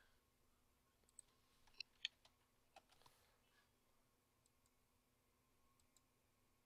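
Near silence: room tone with a handful of faint clicks from computer input, most of them between about one and three seconds in.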